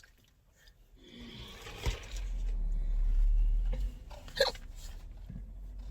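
A person burping, a throaty sound about a second in, followed by a low rumble, and a short sharp throat sound near the end.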